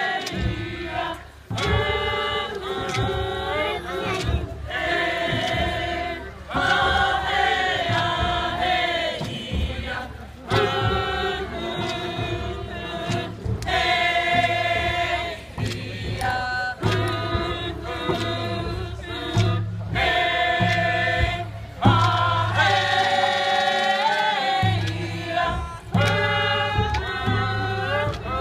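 A group of voices singing a Haida dance song together, in phrases a couple of seconds long broken by short pauses for breath.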